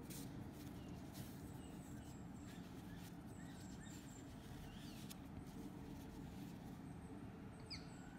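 Quiet room tone with a low steady hum and faint rustles and small clicks from hand-sewing a crocheted piece with yarn. A faint short high chirp comes near the end.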